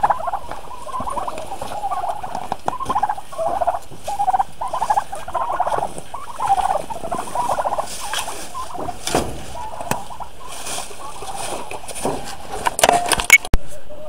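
Domestic turkeys calling over and over in short, pitched calls, with a few sharp knocks near the end.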